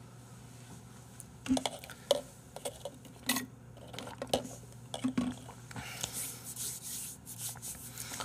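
Drinking from a plastic takeout cup through a straw: a run of short knocks and clicks as the cup is handled, then sucking and slurping through the straw.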